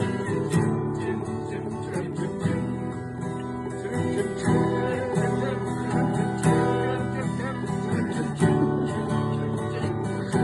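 Acoustic guitar strumming the chords of a campfire song with no singing, a heavier strum falling about every two seconds.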